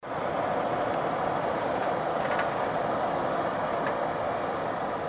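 Steady rain falling, an even hiss, with a few faint ticks of drops about a second, two seconds and four seconds in.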